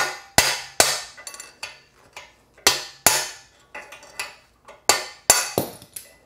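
A 2-pound sledgehammer strikes a steel drift set on a bearing race remover tool, driving a steering-neck bearing race out of a motorcycle frame. The hits are sharp metallic strikes in quick groups of two or three, each ringing briefly, with lighter taps between them.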